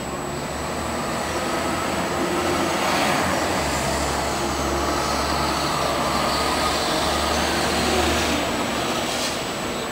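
An SMRT city bus's engine droning low as it drives along the road below, over a steady wash of street traffic heard from high above. The drone swells about a third of the way in and fades near the end.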